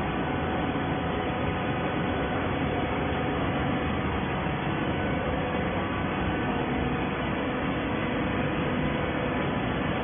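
Automatic hydraulic baling line running steadily: an even mechanical hum with several faint held tones and no distinct strokes or impacts.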